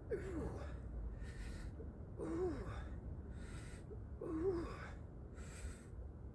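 A man breathing hard with exertion during a bodyweight workout. Sharp breaths alternate with a short voiced grunt on the exhale about every two seconds.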